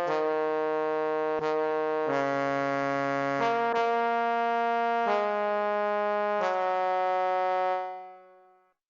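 MIDI-rendered instrumental music: sustained brass-like synthesized chords that change every second or so, fading out near the end.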